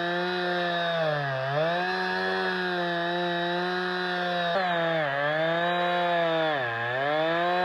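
Chainsaw running at high revs in an Alaskan chainsaw mill, ripping lengthwise through a log. Its engine note sags three times as the chain bogs in the wood, recovering each time.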